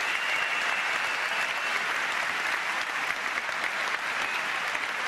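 Large audience applauding: dense, steady clapping that carries on without a break.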